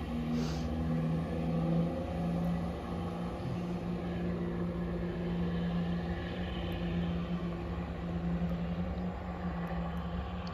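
Diesel engines of a departing Class 158 and Class 170 diesel multiple unit pair, running with a steady drone that eases a little near the end.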